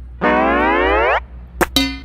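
A cartoon-style 'boing' sound effect: a pitched tone sliding upward for about a second. Two sharp clicks follow near the end, the second leaving a short ringing note.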